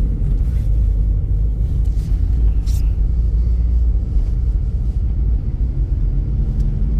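A moving car heard from inside the cabin: a steady low rumble of engine and road noise. A single short click near three seconds in.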